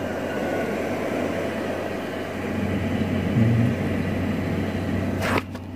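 Steady hum and hiss from a power amplifier and speaker system switched on with no music playing. About five seconds in there is a short click, and the noise then drops.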